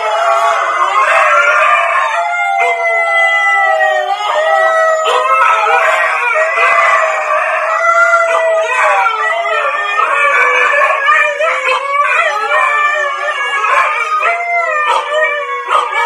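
Three Siberian huskies howling together: several long, wavering howls at different pitches overlapping without a break.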